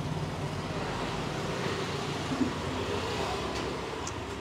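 Steady rumble of road traffic passing by.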